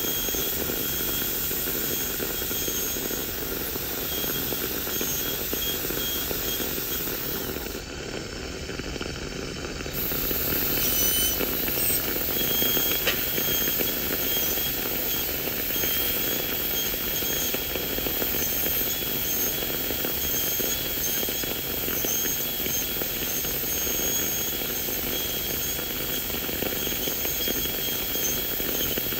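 High-speed air-turbine dental handpiece whining steadily over a hiss as its bur cuts a plastic typodont tooth during a crown preparation. The whine drops out for about two seconds around a third of the way in, then picks up again.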